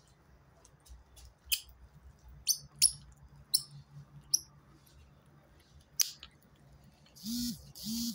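A cat chewing a chunk of raw steak, making about half a dozen sharp, wet clicks of teeth and tongue at scattered moments. Near the end come two louder rasping sounds, each about half a second long.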